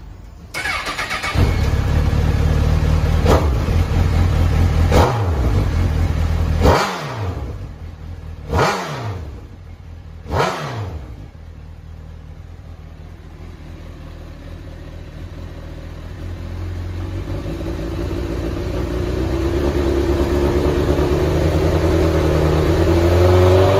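Honda CBR1000RR (SC57) inline-four with a Moriwaki aftermarket muffler starting up. The starter cranks briefly, the engine catches and idles, and then the throttle is blipped five times in quick succession, each rev dropping away. The engine settles to idle and grows louder near the end as its note rises.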